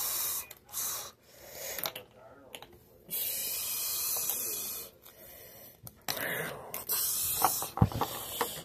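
Hissing, breathy bursts made by mouth as battle sound effects for plastic toy soldiers, some short and one running about two seconds, with a few light clicks of plastic toys knocking on a wooden table near the end.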